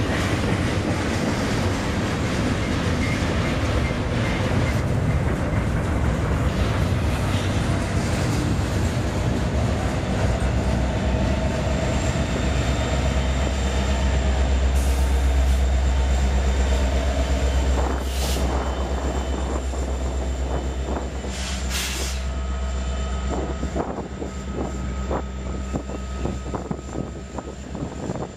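Union Pacific double-stack container freight train passing close by, its wheels rumbling and clattering over the rails with some squeal. About halfway through, the diesel locomotive at the rear of the train passes and its engine drone is loudest, then fades as the train moves away.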